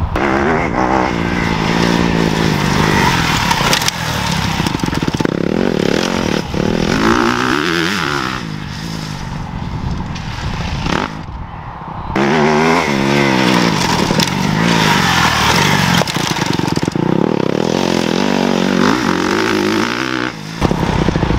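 Motocross bike engine revving hard as it is ridden round a dirt track. The pitch climbs and falls again and again as the rider opens and closes the throttle.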